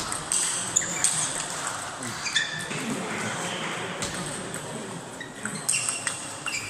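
Table tennis hall sound: a few sharp clicks of ping-pong balls struck and bouncing, short high squeaks, and faint voices in a large echoing room.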